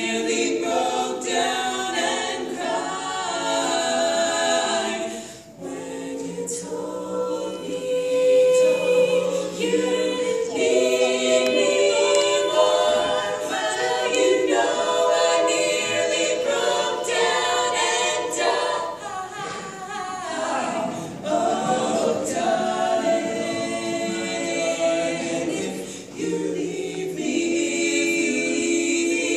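Four women singing together a cappella, several voices sounding at once, with a short break in the sound about five seconds in.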